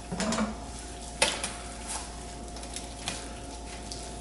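Kitchenware being handled: a short scrape, then one sharp clink and a few lighter taps, over a steady low hum.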